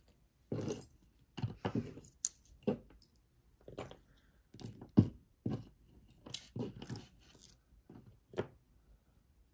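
Small pieces of costume jewelry clinking and rattling as they are picked through and set down: a dozen or so short, separate clinks and knocks, the loudest about halfway through.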